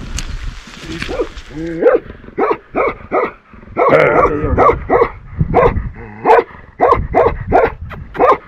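A dog barking over and over in short barks, about two a second, starting about two seconds in. The barking is a territorial warning to people trying to pass.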